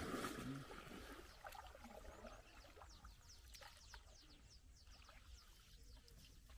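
Quiet sounds of a wooden canoe being paddled: the paddle dipping and water trickling off it. Many faint, high, falling bird chirps come through the middle.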